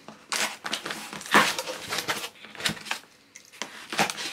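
Cardboard mailer box being opened: a small blade slitting the packing tape, then the cardboard flaps pushed and folded open, in irregular scrapes and crinkles with a few sharp clicks. The loudest scrape comes about a second and a half in.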